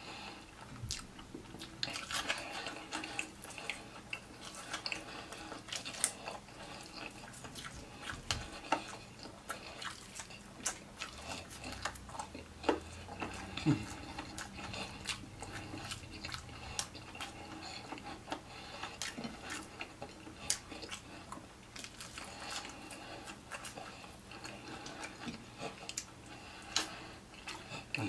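A person chewing and biting fried chicken, with many small irregular clicks and crunches.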